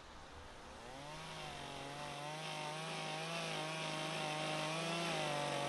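Two-stroke chainsaw engine running, starting about a second in and growing steadily louder, its pitch wavering slightly.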